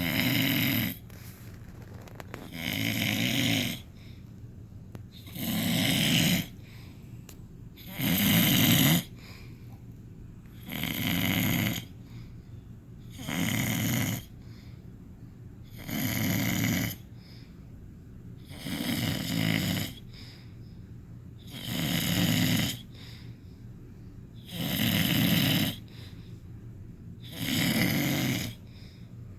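Loud, regular snoring: a rough snore about every two and a half to three seconds, each lasting about a second, with quieter breathing in between.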